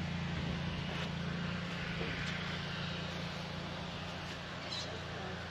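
Steady low machine hum, holding the same pitch throughout, with a few faint knocks.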